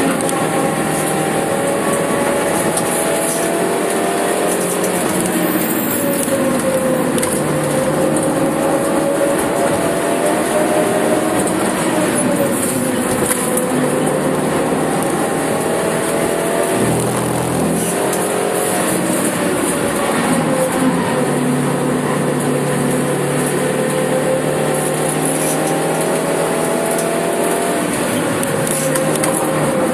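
Suzuki Swift Sport's four-cylinder engine heard from inside the cabin under hard driving, its note rising and falling repeatedly as the revs climb and drop, with one brief break about 17 seconds in. Steady tyre and road noise runs underneath.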